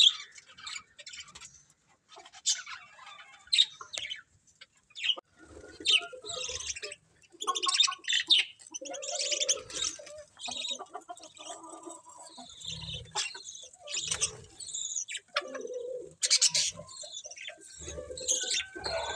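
Budgerigars chirping and chattering, a dense stream of short, overlapping calls.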